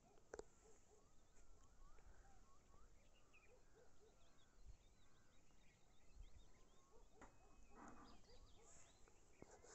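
Near silence with faint, scattered bird chirps and calls.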